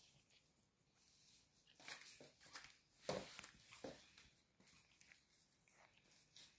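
Faint squeaks from newborn miniature pinscher puppies: a few short sounds about two, three and four seconds in, the one about three seconds in the loudest, over soft rustling of bedding.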